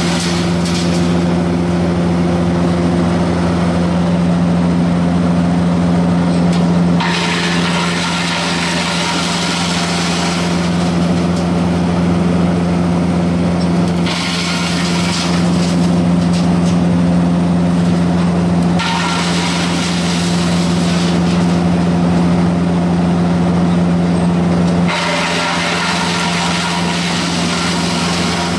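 Diesel engine of a mobile drum wood chipper running steadily under power. A harsher, hissing noise swells over it for a few seconds at a time, three times.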